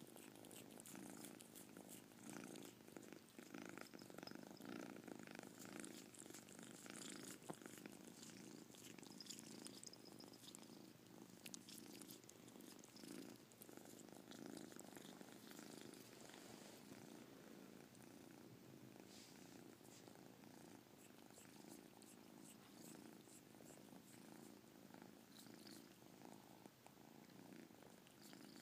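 Kitten purring softly and steadily while its chin is rubbed.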